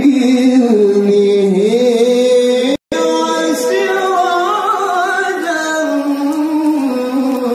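A male qari reciting the Quran in melodic tilawah style into a microphone, drawing out long ornamented phrases that waver and bend in pitch. The sound cuts out for an instant about three seconds in, then a new phrase starts and climbs higher.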